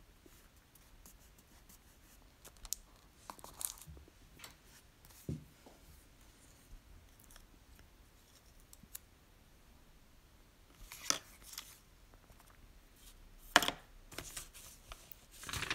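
Quiet, intermittent paper handling as a stamp and a strip of tape are laid onto a journal page and pressed down: scattered soft rustles and small taps, with a few sharper rustles late on, the loudest about two seconds before the end.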